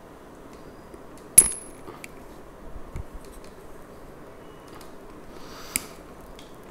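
A small hard object knocks against a hard surface: one sharp clink about a second and a half in, with a brief high ring that fades quickly. A smaller click follows near the end, over faint steady room noise.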